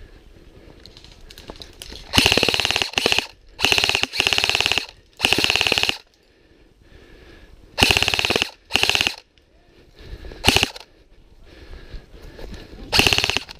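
Airsoft electric gun firing a string of short full-auto bursts, each under a second long, with short pauses between them. The firing starts about two seconds in.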